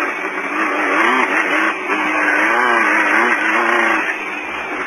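Off-road race car's engine running under load, its pitch rising and falling with the throttle, heard through the in-car intercom microphone, which makes it sound thin and narrow.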